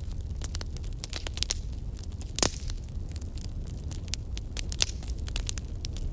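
Kitchen knife cutting vegetables on a wooden cutting board, first green beans and then cabbage: irregular sharp clicks and taps of the blade on the board, with one louder knock about two and a half seconds in, over a steady low hum.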